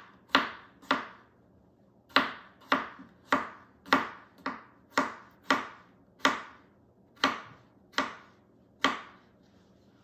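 Chef's knife slicing small red potatoes thin on a wooden cutting board: a sharp tap of the blade striking the board roughly every half second, about a dozen in all, with a brief pause about a second in, stopping near the end.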